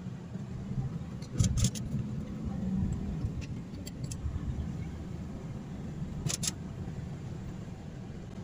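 Steady low road and engine rumble inside the cabin of a moving car. A couple of short sharp clicks or rattles stand out, about one and a half seconds in and again about six seconds in.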